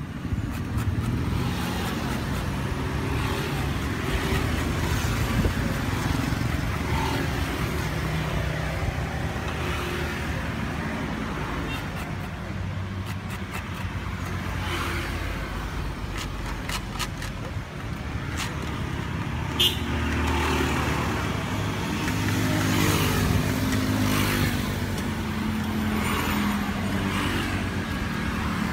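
Road traffic: motor vehicles running and passing close by, their engine sound swelling and fading in turn. A single sharp click comes about two-thirds of the way through.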